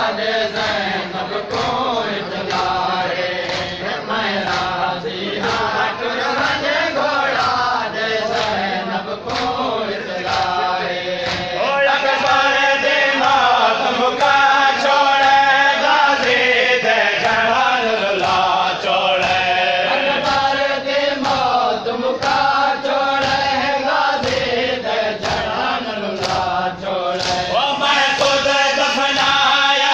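Noha, a Shia lament, chanted loudly by men's voices, with a steady beat of hand slaps keeping time as the mourners beat their chests in matam.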